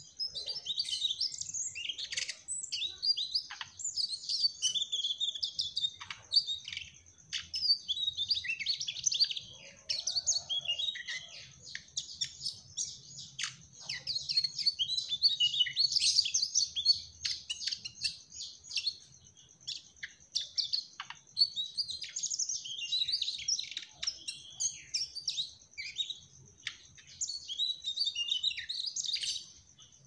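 Mugimaki flycatcher singing a rapid, high, chattering song of chirps and trills in long runs with short pauses. A steady high whine sits under the song.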